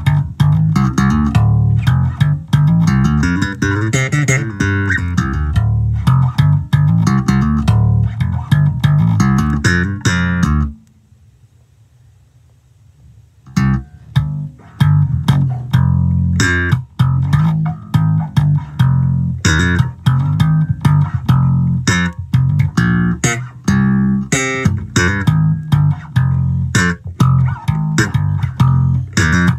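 Peavey Forum V five-string electric bass played unaccompanied, a quick run of plucked notes. The playing stops for about three seconds around a third of the way in, then carries on.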